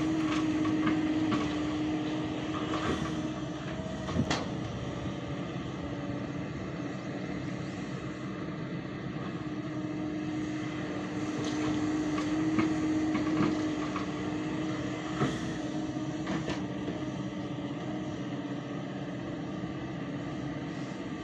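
Hyundai crawler excavator's diesel engine running under working load as it digs and loads sand, its note swelling over a few seconds at a time, with several sharp metallic clanks from the bucket and boom.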